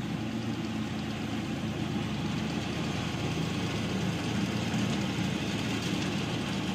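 ISEKI rice combine harvester's diesel engine and machinery running steadily while it cuts and threshes rice.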